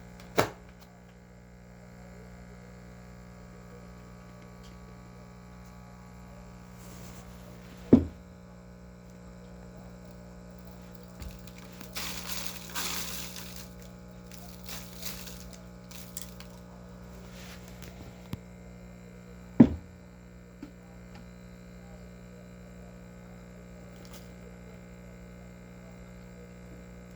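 Sharp plastic knocks, three loud ones, while a vacuum cleaner's dirt container is opened and emptied. Dirt rustles out of it about twelve seconds in, over a steady electrical hum.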